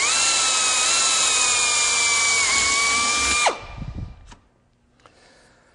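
Variable-speed electric drill running at full speed with a steady whine as a number 40 bit drills through aluminium sheet. The trigger is released about three and a half seconds in and the motor spins down quickly, followed by a faint tap.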